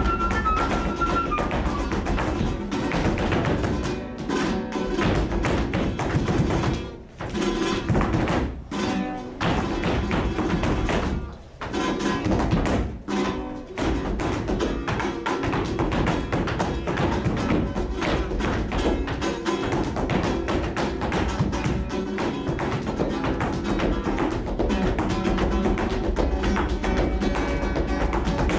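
Live flamenco: a dancer's rapid zapateado heel-and-toe strikes over flamenco guitar, with the footwork and music stopping short several times between about 7 and 14 seconds in, then running on steadily. A short high flute note sounds in the first second.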